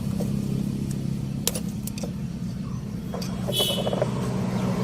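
A few light metallic clicks and a short ringing clink from handling horn-relay wiring and its terminals, over a steady low hum.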